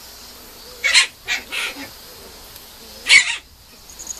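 Mame shiba puppy giving short, high-pitched barks: three in quick succession about a second in, then a louder single one about three seconds in.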